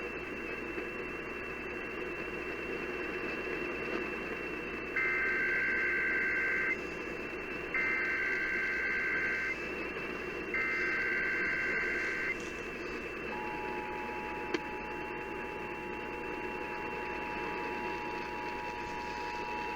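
Emergency Alert System activation received over a radio under steady hiss. Three SAME header data bursts come first: buzzy two-tone warbles of about a second and a half each, with short gaps between them. About 13 s in, the steady two-tone EAS attention signal (853 and 960 Hz) begins, marking the start of a required monthly test. A single click follows just after the attention signal starts.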